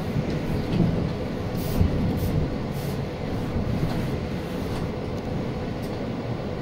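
City bus cabin noise from inside a moving bus: a steady low engine and road rumble, with a few short rattles about two seconds in.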